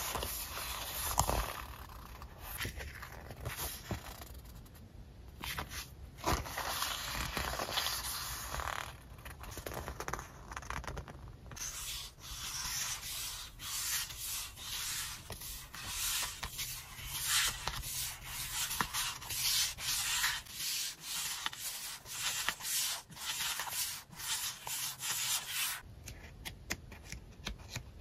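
Sheets of sticker paper rubbing and sliding against each other as they are fanned out and shuffled by hand. In the second half this breaks up into a run of quick, short rustles as the sheets are leafed through one after another.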